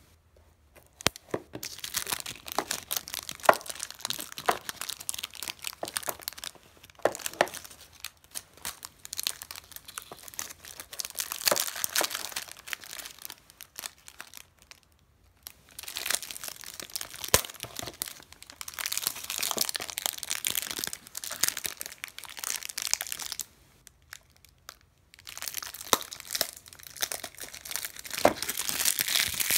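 Clear plastic shrink wrap crinkling and crackling as it is handled and peeled off a small cardboard figure box. It comes in long stretches of crackle, broken twice by short pauses.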